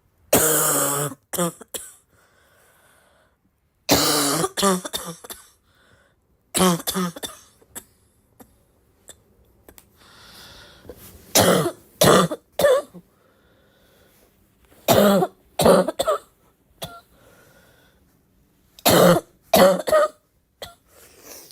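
A person in a fit of harsh, barking coughing: about half a dozen bouts of one to three loud coughs, with pauses of a few seconds between them. The first cough is the longest.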